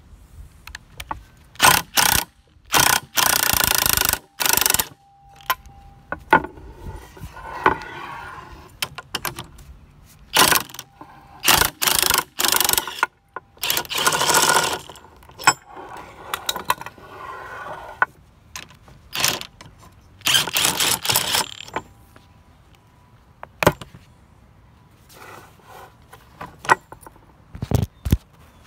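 Cordless power tool driving the threaded rods of a coil-spring compressor in a dozen or so bursts of up to about two seconds, compressing a car strut's coil spring to take its tension off the top mount.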